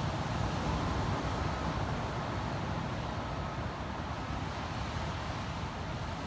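Steady wash of ocean surf breaking along a beach, with wind rumbling on the microphone.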